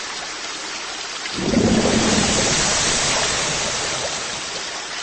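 Rain-and-thunder sound effect: steady rain hiss, with a low rumble of thunder swelling about a second and a half in and slowly dying away.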